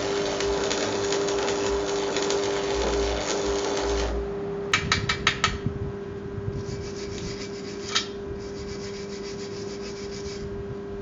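Electric welding arc crackling and spitting for about four seconds while a shock-absorber bracket is welded onto a steel motorcycle swingarm, then it cuts off. A quick run of about five sharp metal taps follows, then a steady scraping and rubbing at the fresh weld. A steady hum sits underneath throughout.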